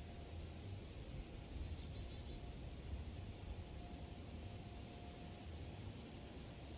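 Faint outdoor ambience: a steady low rumble with small high bird chirps scattered through it, and one short bird trill about a second and a half in.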